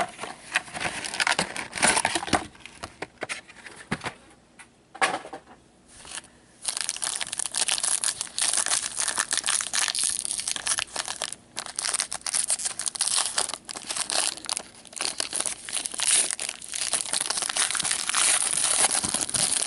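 A trading-card pack's wrapper being torn open and crinkled by hand: scattered crackles at first, then continuous crinkling from about six seconds in.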